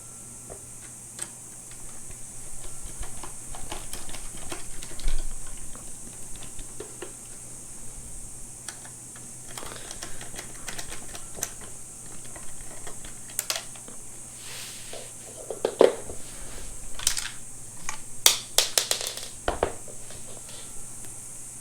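Irregular light clicks and clatters of a small Torx screwdriver working T15 screws out of a steering wheel's metal and plastic trim, with the small parts being handled, louder clusters of clicks in the second half.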